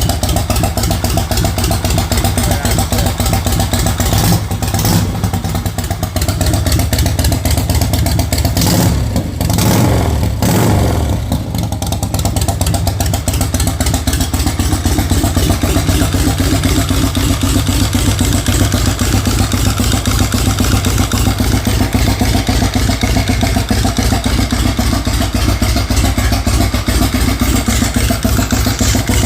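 Harley-Davidson Shovelhead V-twin motorcycle engine running, its note changing a few times in the first twelve seconds or so, then running steady.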